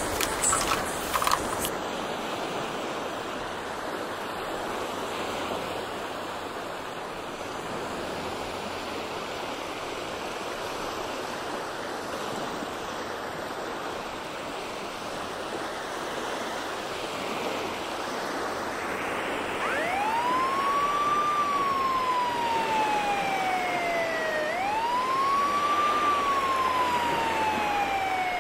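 A steady rushing background, then about two-thirds of the way in a police siren starts wailing. It rises quickly and falls slowly, twice. A few sharp clicks sound in the first second or so.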